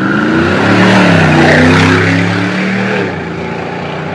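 Mercedes-AMG G-Wagon engine accelerating hard, its pitch rising quickly and then held loud for about three seconds before it eases off.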